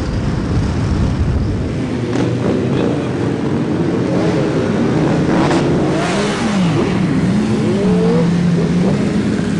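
Engines of a group of sport motorcycles idling and revving, several at once, their pitch rising and falling as throttles are blipped.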